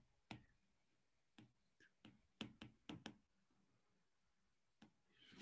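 Faint, irregular light taps and clicks of a stylus on a pen tablet as handwriting is written, several of them bunched together around two to three seconds in.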